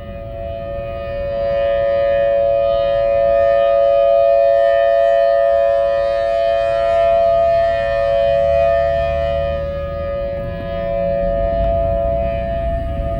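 A loud, steady drone of two close pitches, held unchanged, with a rumble beneath that grows stronger in the second half. It is one of the unexplained 'strange sounds' reported around the world, of unknown origin.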